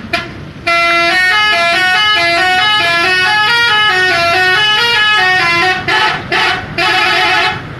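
Mustika Holiday bus's telolet horn, a musical air horn, playing a stepping multi-note tune for about five seconds, then three short blasts near the end.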